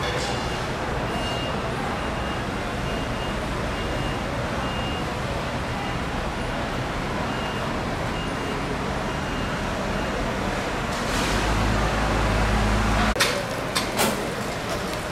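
Busy market floor noise with a vehicle engine running nearby, louder for a couple of seconds near the end, and a faint high beep repeating in short pulses through the first part. A few sharp knocks come near the end.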